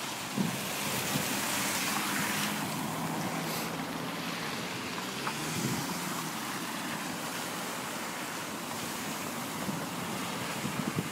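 A car driving through flood water on a road, its tyres spraying water, loudest in the first couple of seconds, over a low engine hum. Another car passes near the end.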